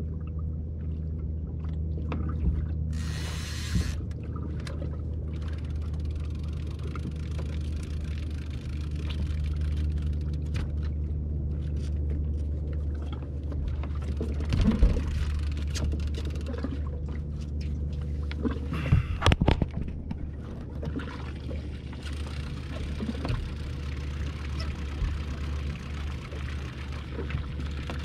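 Outboard motor idling steadily on a small boat, a low even hum. A brief hiss comes a few seconds in, and a few sharp knocks come around the middle and about two-thirds of the way through.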